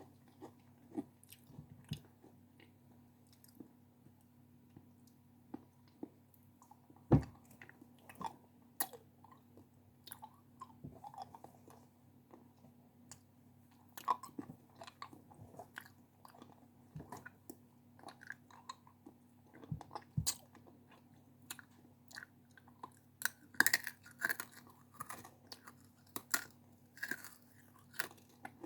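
Close-miked biting and chewing of crunchy snack food: irregular crisp crunches, with one sharp bite about seven seconds in and a quick run of crunches near the end.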